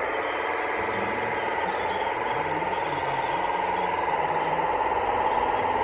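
Radio-controlled model construction machine's electric drive motor and gearbox whining steadily, the whine rising slightly in pitch and getting a little louder near the end.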